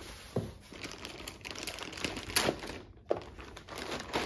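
Clear plastic protective bag crinkling as it is pulled off an unboxed oscilloscope, with two short light knocks, about half a second in and about three seconds in.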